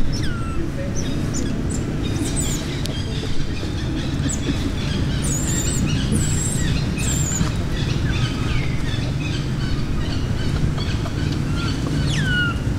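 Birds chirping: scattered short high chirps and quick falling whistled calls, over a steady low rumble.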